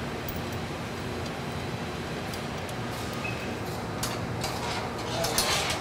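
Steady background hum, with a few light metallic clicks and rattles near the end as casing bolts are turned by hand into a centrifugal pump's casing.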